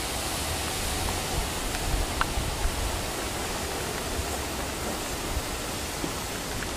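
Steady outdoor hiss with an uneven low rumble underneath, typical of wind on a camcorder microphone, and a faint brief chirp about two seconds in.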